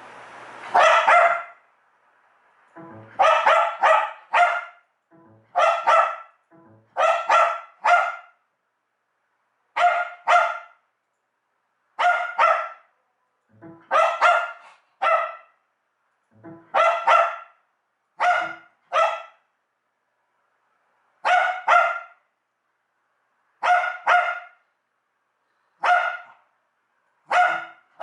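A computer's USB plug/unplug chime sounding over and over, a short two-note tone about every two seconds, with a wire-haired fox terrier barking at it.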